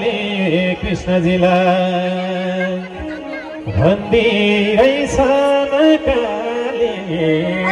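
Live bhajan music: a harmonium holds a steady drone under a wavering sung melody, with a few sharp percussion strikes now and then.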